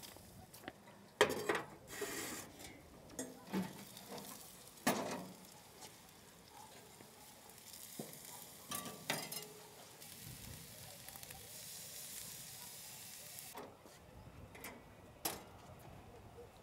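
Metal clanks from a charcoal grill's lid and a wire grilling basket being handled, several in quick succession at first and a few more later. In the middle a steady hiss of food sizzling over the hot coals runs for several seconds.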